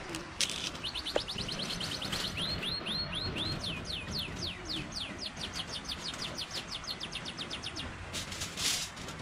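A songbird singing a long, fast run of repeated downward-sliding whistled notes, about four or five a second, over a steady hiss of flowing river water. A short rustle comes near the end.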